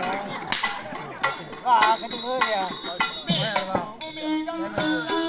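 Live stage music striking up: drum strikes and rattling percussion with a voice over them, and a steady held note joining about four seconds in.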